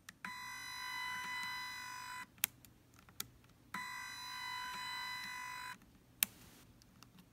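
Small stepper motor in the opened zoom head of a Godox V860II flash, buzzing at one steady pitch in runs of about two seconds, with a sharp click in each pause between runs.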